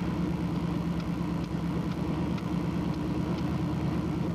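Vehicle engine running steadily, heard from on board while driving: an even low drone with a fast pulse and a few faint ticks.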